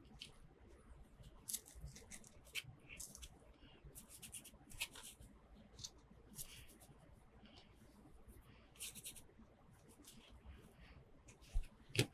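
Quiet hand-handling of plastic toy pieces and packaging: scattered light clicks, taps and rustles, with two sharper clicks near the end.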